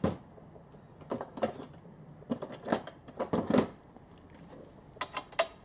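Metal hand tools clinking and knocking in irregular clusters as they are tried against a mast bolt head to find its size.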